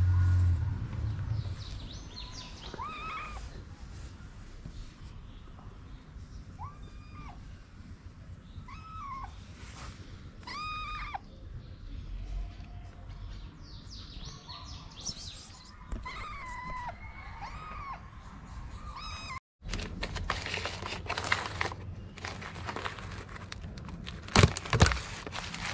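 A kitten meowing again and again, short meows that rise and fall in pitch. Later come rustling and sharp clicks of a plastic food tub being handled.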